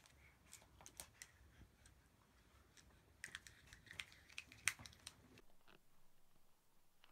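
Faint scattered clicks and taps of a baby's plastic teething-ring toy being handled and mouthed, over near-silent room tone.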